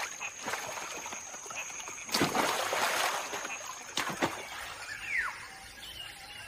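Water splashes as macaques leap into a river and swim, the loudest about two seconds in, followed by a rushing wash of water. Two more splashes come close together near the middle, and a short falling bird call follows.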